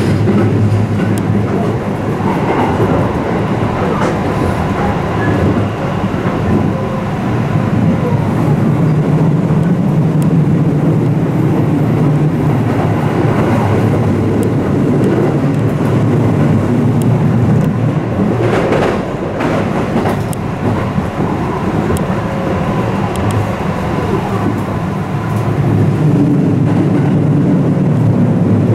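Inside the passenger cabin of a 221 series electric train running between stations: a steady rumble of wheels on rail under a low motor hum. A short run of clicks over rail joints comes about two-thirds of the way through.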